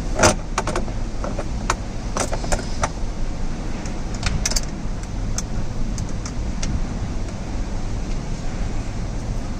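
Small screws and the console lid's hinge clicking and clinking as they are handled and set in place, a series of sharp clicks that thins out after the first few seconds, over a steady low hum.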